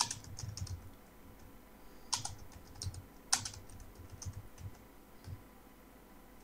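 Typing on a computer keyboard: a run of irregular keystrokes, a few of them louder, dying away near the end.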